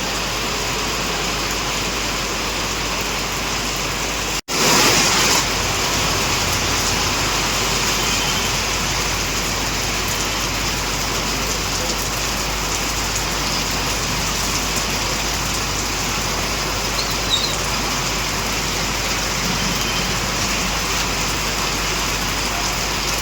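Heavy rain falling steadily on a city street, mixed with the noise of road traffic. About four and a half seconds in it cuts out for an instant, then comes back louder for about a second.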